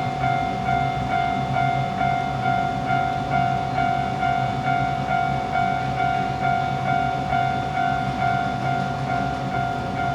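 Japanese level-crossing warning alarm ringing: the standard electronic crossing bell, a steady ding repeating about twice a second.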